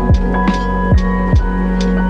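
Background music with a steady beat: deep kick drums about twice a second under sustained synth tones, with light high percussion ticks.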